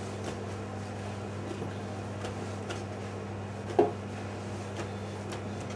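Steady low background hum with a few faint clicks, and one short, louder sound a little under four seconds in.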